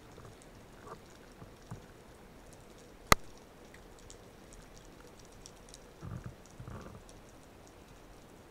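Underwater ambience heard through a camera housing: a faint hiss with scattered small clicks and crackles, one sharp loud click about three seconds in, and a couple of low muffled thumps a little after six seconds.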